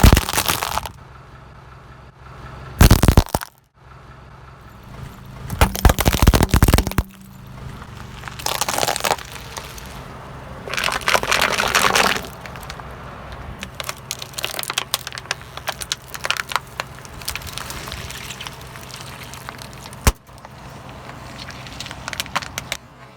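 Car tyres rolling over and crushing brittle objects: a series of loud cracking crunches, five or six separate ones in the first half, then quieter crackling and one sharp snap, over the car's steady low engine hum.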